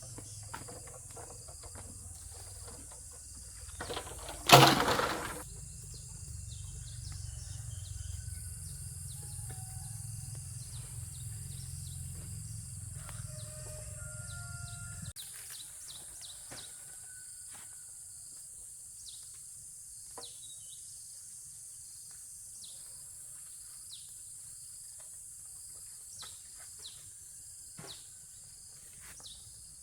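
Rural outdoor ambience: a steady high-pitched insect drone with faint scattered bird chirps and small ticks. One loud sharp knock about four seconds in, and a low rumble that cuts off suddenly about halfway.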